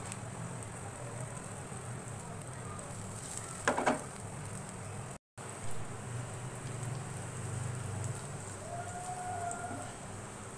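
Chopped garlic sizzling in hot oil in a pan, a steady frying hiss, with one short louder clatter a little under four seconds in.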